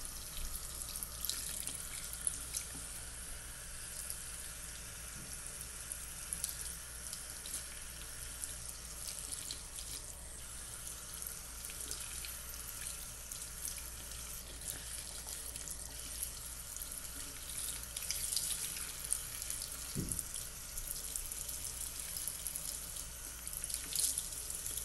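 Bathroom sink faucet running steadily while a doll's wet hair is rinsed under it by hand, with small splashes. One dull knock about twenty seconds in.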